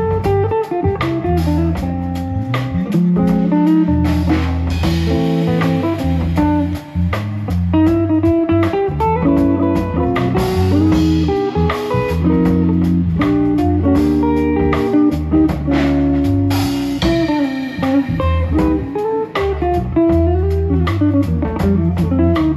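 A live small band playing an instrumental: a hollow-body electric guitar picking a lead melody over electric bass guitar and a drum kit.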